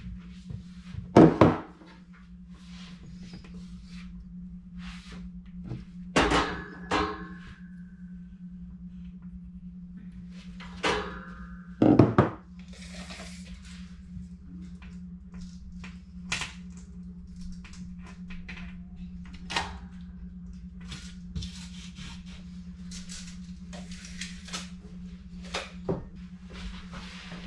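Knocks, clicks and rattles of hands working a metal shelf bracket and a tape measure against a wall. The loudest knocks come about a second in and again around six and twelve seconds, with lighter clicks between, over a steady low hum.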